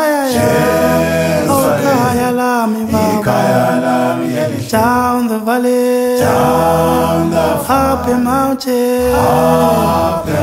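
A cappella vocal music: voices singing a chant-like song in held and sliding notes.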